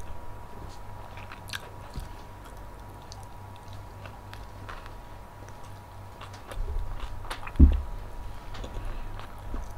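Close-miked chewing and biting of food, with small crunches and mouth clicks scattered through, and one heavy low thump about seven and a half seconds in.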